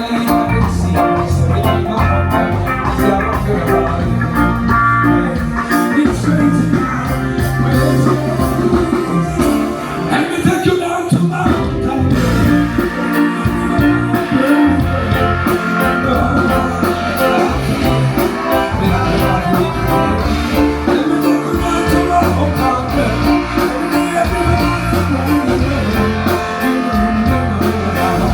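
Band music playing loudly, with guitar and a singing voice, at a live sound check.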